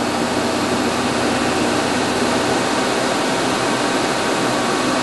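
Five-axis CNC machining center running, a half-inch ball end mill finishing the impeller hub: a steady hiss with faint steady tones underneath.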